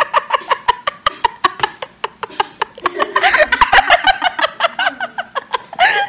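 Two young women laughing hard together in fits of rapid, breathy, pulsing laughter that gets louder about halfway through.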